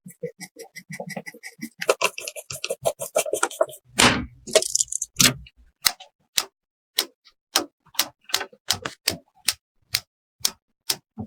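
Small clicks and taps of PC parts being handled and fitted, with a louder knock about four seconds in, followed by a regular series of sharp clicks, about two or three a second.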